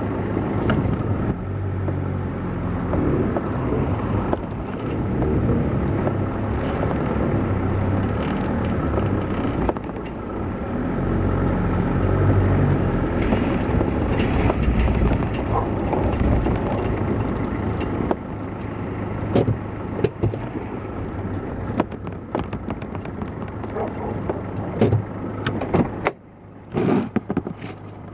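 Loud motor of a vehicle running steadily with a low hum, with sharp knocks and rattles in the later part and a brief drop in loudness near the end.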